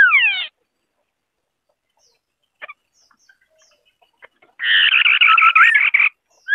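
White-browed scimitar-babblers calling: a short phrase of falling whistled notes, then after a pause of a few seconds a harsh, rapid chattering phrase about a second and a half long, and the falling whistles starting again near the end.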